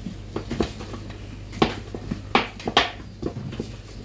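Hands kneading festival dough in a stainless steel bowl: a few sharp knocks and slaps against the metal, the loudest about one and a half, two and a half and three seconds in.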